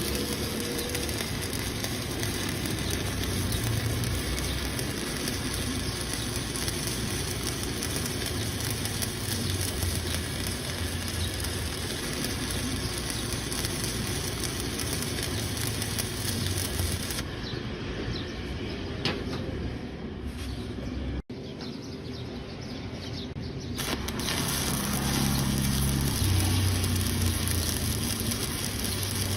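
Electric arc welding: the arc crackles and sizzles steadily as a weld is run. For several seconds past the middle the sound is duller and quieter, with a momentary cut-out.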